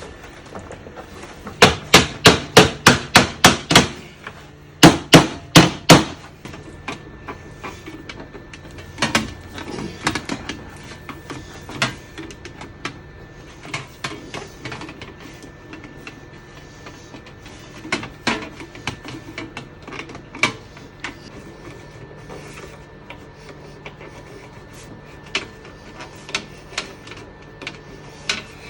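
Hammer striking a brass instrument's bell flare to work out a crush: a quick run of about ten sharp blows at roughly four a second, a short pause, four more blows, then lighter scattered taps and knocks.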